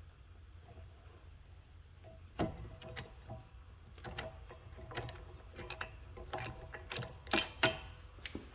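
Rear brake caliper piston being wound back with a screw-type caliper compression tool: irregular metallic clicks and knocks as the tool is turned, starting about two seconds in, with two louder clicks near the end. The piston goes back in freely, so it is not seized.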